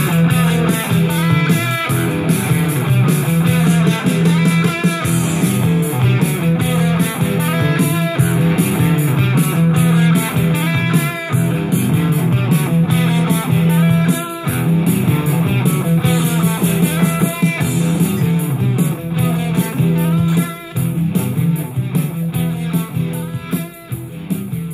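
Guitar rock music played back from a cassette on a Nakamichi CR-1A two-head cassette deck, getting somewhat quieter near the end.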